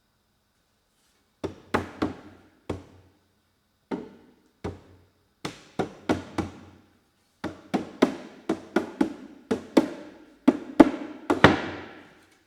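A long, irregular series of sharp knocks on wood, each ringing briefly, coming faster and louder toward the end.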